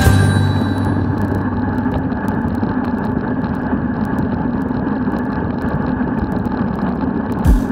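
Steady rush of wind and road noise from riding a bicycle at speed, with a few low wind thumps on the microphone near the end.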